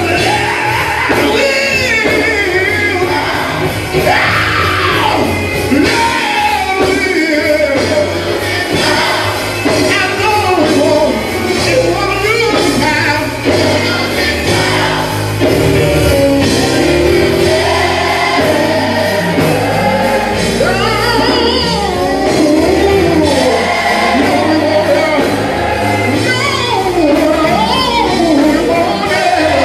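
Large gospel choir singing loudly over instrumental accompaniment with a steady bass line.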